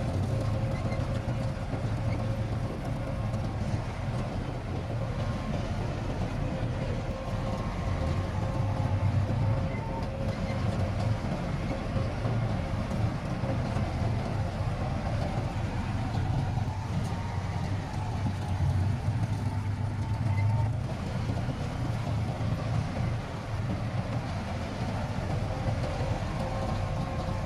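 Heavy diesel engine of construction machinery running steadily, a low, even rumble with a faint whine above it.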